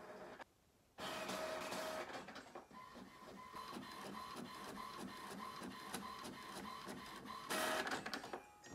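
A small machine running with a steady whine and rapid, regular mechanical ticking, starting about a second in, with a louder burst near the end.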